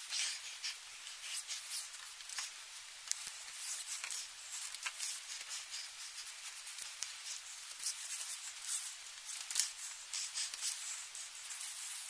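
Corset laces and fabric being handled at high speed, the laces sliding through metal grommets: a fast, thin rustling hiss scattered with small ticks and clicks.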